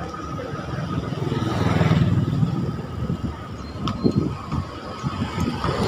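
Wind rumble on the microphone and tyre noise from a mountain bike rolling along a concrete lane, swelling about two seconds in.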